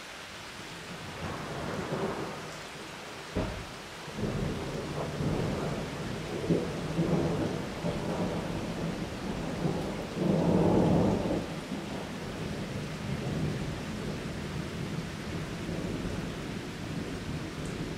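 Rain falling steadily on trees and foliage while thunder rolls: a sharp crack a few seconds in, then long low rumbles that swell to their loudest just past the middle before easing back to the steady rain.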